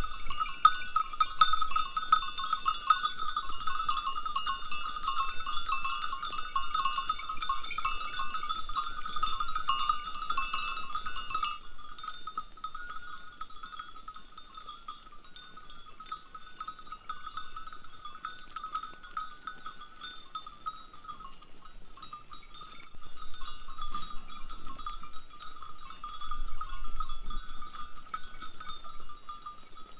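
Many bells on a herd of sheep and goats clanking and jangling continuously as the animals move and graze. The jangle drops abruptly quieter about twelve seconds in, then swells again near the end.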